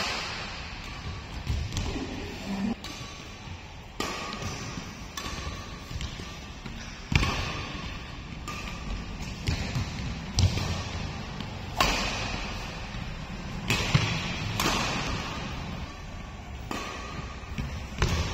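Badminton rally: sharp racket strikes on the shuttlecock about every one to two seconds, with the players' footfalls thudding on the court mat. Each strike rings briefly in the hall's echo.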